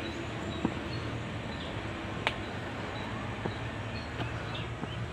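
Open-air ambience: a steady low rumble of noise, with faint short bird chirps and a few sharp clicks, the loudest of them a little over two seconds in.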